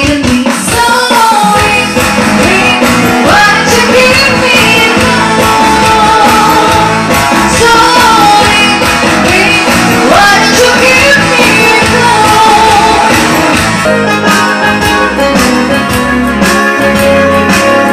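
A song with a singer's voice over guitar and a band backing, with bass and a beat coming in about two seconds in.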